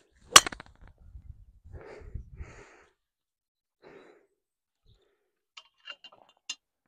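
A golf driver striking the ball off the tee: one sharp, loud click just after the start. Low rumbling noise and some breathy sounds follow for about two seconds, and a few small clicks come near the end.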